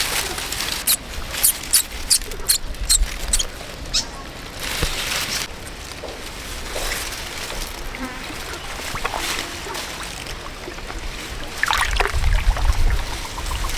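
Water splashing and trickling, with a quick run of sharp slaps or clicks in the first few seconds and another cluster of knocks with a low rumble near the end.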